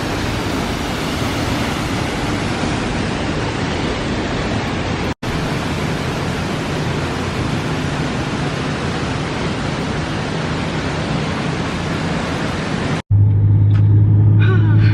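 Waterfall rushing in a steady, dense wash of noise, cut off briefly about five seconds in. Near the end it cuts abruptly to a steady low engine hum, as heard inside a car.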